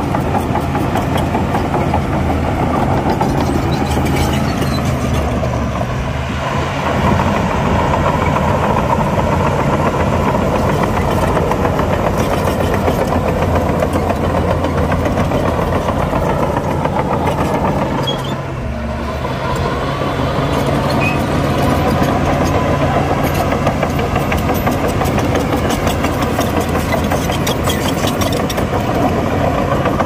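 Heavy diesel earthmoving machinery running steadily under load, with a steady low engine note that dips briefly about two-thirds of the way in before picking up again.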